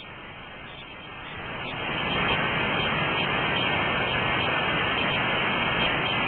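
Steady rushing of river water, an even hiss with no pitch. It drops off suddenly at the very start and swells back to full over the next couple of seconds.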